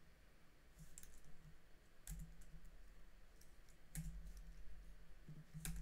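A few faint, isolated clicks of computer keyboard keys, about four spread over several seconds, over a faint low hum.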